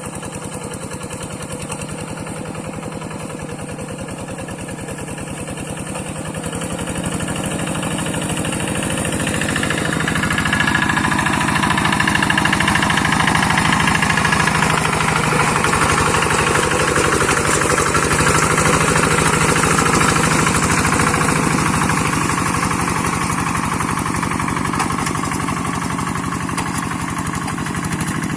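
Two-wheel hand tractor's diesel engine running steadily, growing louder about a third of the way in and staying loud.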